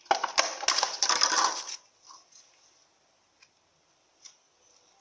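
Slime being squeezed and kneaded by hand, giving a dense burst of crackling clicks for nearly two seconds, then a few faint single clicks.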